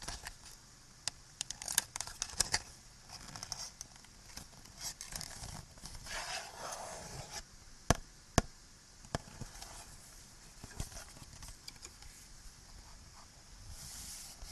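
Close-up scratching and crinkling of small handled objects, with scattered light clicks and two sharp taps about eight seconds in. A steady background hiss sits under it.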